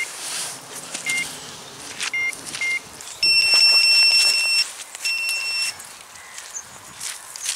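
Electronic bite alarm on a feeder rod's pod beeping: a few single short beeps, then about three seconds in a long continuous tone, broken briefly and resumed, the sign of a fish running with the bait and taking line.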